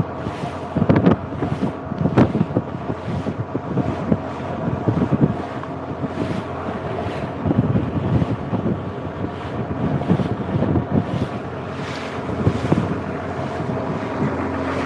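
Boat engine running steadily while under way on the river, with wind buffeting the microphone in irregular gusts.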